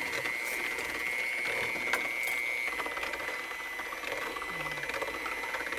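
Electric hand mixer running steadily with a high motor whine, its beaters churning beaten eggs, oil and granulated sugar in a bowl, with a gritty rubbing of the undissolved sugar against the bowl. The whine drops slightly in pitch about halfway through.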